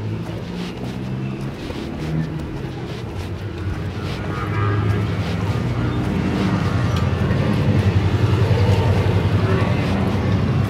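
A car engine running with a steady low hum that grows louder over the second half.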